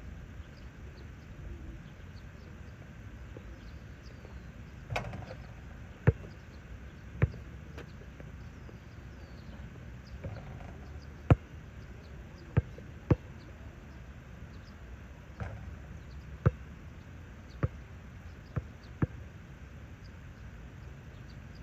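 Basketball bouncing on an outdoor hard court: about ten sharp single thuds at irregular intervals, as the ball is dribbled and comes down after a shot.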